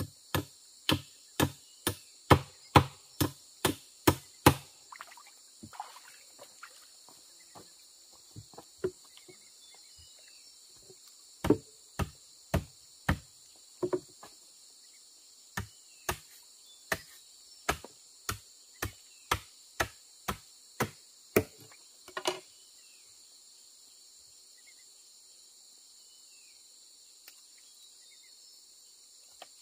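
A run of sharp tool strikes, about two a second, in bursts with short pauses, stopping about 22 seconds in. Insects chirr steadily and high-pitched throughout.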